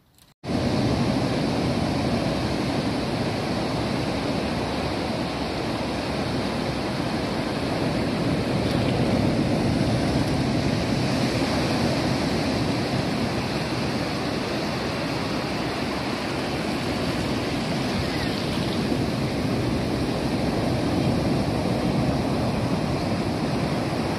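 Waves breaking and washing up a sandy beach: a steady rush of surf that starts suddenly about half a second in.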